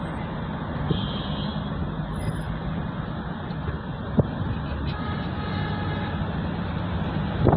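Steady road and engine noise of a moving car, heard from inside the cabin, with one short knock a little past halfway.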